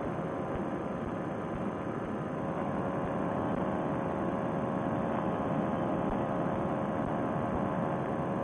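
Paramotor trike's engine and propeller running steadily in flight, a constant drone with a faint hum, heard muffled through a Bluetooth headset link.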